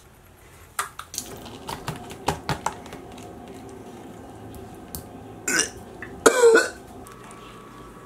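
Small clicks and knocks of hands working a thawed squid and its plastic zip-top bag, over a faint steady hum. About five and a half seconds in, a person makes two short vocal noises, a second apart, that are louder than the handling.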